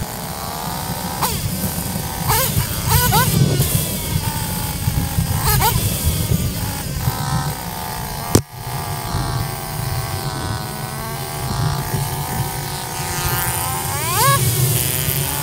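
Dirt bike engine running and being blipped, its pitch rising sharply on several quick revs, with steadier running in between. There is a sharp click about eight seconds in.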